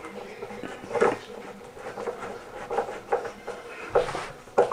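Hand screwdriver turning a screw up into the underside of a wall shelf: a few irregular clicks and scrapes as the screw is driven home.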